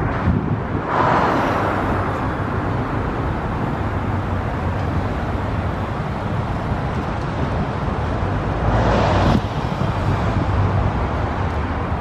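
Steady traffic and machinery noise of an urban construction site, with wind on the microphone. Two brief louder rushes of noise come about one second in and about nine seconds in, the second one cutting off suddenly.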